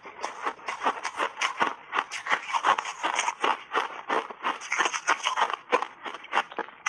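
Close-miked chewing of a mouthful of frozen blueberry block ice coated in matcha powder: a rapid, irregular run of sharp crunches and crackles.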